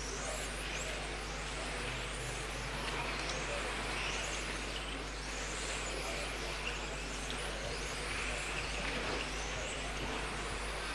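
Several 1:10 electric RC touring cars racing, their motors whining in many quick rising and falling pitches as they accelerate out of corners and brake into them.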